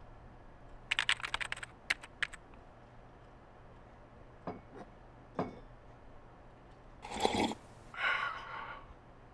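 Typing on a computer keyboard: a quick run of keystrokes about a second in, then two single key presses. A few soft knocks follow in the middle, then two short noisy sounds near the end, the first as loud as the typing.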